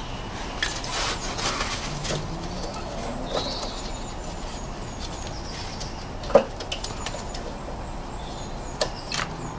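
Hands handling a plastic ABS wheel-speed sensor connector and its wiring inside the wheel arch: light rustling with scattered clicks, the loudest a sharp click about six seconds in and a few more near the end.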